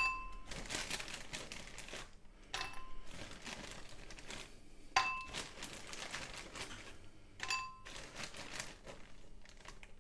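Frozen mashed potato sticks dropped by hand into a ceramic bowl. Four times, each drop lands with a clink and a short ring from the bowl, about two and a half seconds apart, with a plastic freezer bag crinkling in between.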